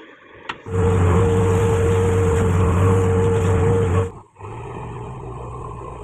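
JCB 3DX backhoe loader's diesel engine running hard with a steady whine over it. It starts abruptly just under a second in and cuts off about four seconds in. Then the engine carries on at a lower level.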